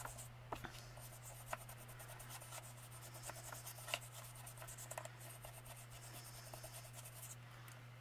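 Faint scratchy rubbing of a small ink-blending brush worked in short strokes over a small wooden pumpkin cutout on paper, with a few light ticks, over a steady low hum.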